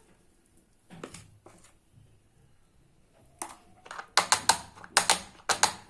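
A spoon clicking and tapping against small cake molds as batter is spooned into them: a few scattered clicks, then a quick run of sharp clicks in the second half.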